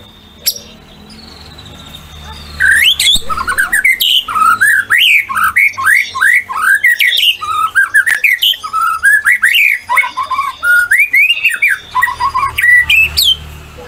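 White-rumped shama singing a loud, fast run of varied whistled notes, many sliding upward. The song starts about two and a half seconds in, after a brief low hum, and stops shortly before the end.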